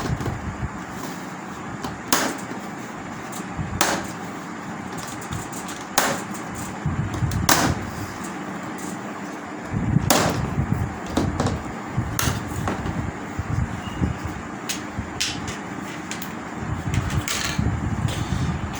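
Plastic clips of an LED TV's front bezel snapping loose one by one as it is prised off: about eight sharp clicks spaced a second or two apart, with handling noise of the plastic frame between them.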